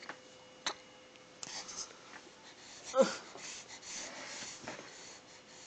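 Faint breathing and whispery breath sounds, with a light click under a second in and one short falling vocal sound about three seconds in.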